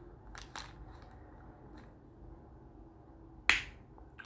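Pocket watch hands being levered off the centre post with a pair of hand levers: faint clicks near the start, then one sharp snap about three and a half seconds in as the hands pop loose.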